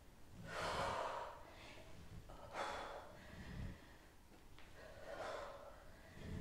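A woman's faint, forceful breaths out while doing weighted crunches on a stability ball, three breaths about two and a half seconds apart.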